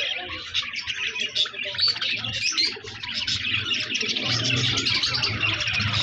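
A flock of caged budgerigars chirping and chattering continuously, many birds at once.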